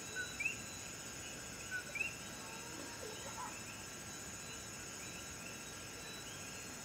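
Chorus of insects and frogs: a steady high-pitched insect trilling throughout, with frogs giving repeated two-note chirps, a low note followed by a higher rising one.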